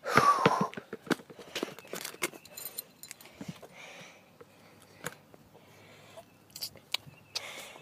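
Handling noise from a phone held close while filming: scattered clicks, taps and rustles as it is moved about, with a short vocal sound from a child at the start and a brief rustle near the end.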